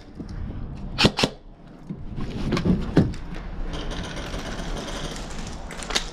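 Two sharp airsoft shots close together about a second in, then thumps and rustling of movement and gear in a small plywood shoot-house, with one more sharp crack near the end.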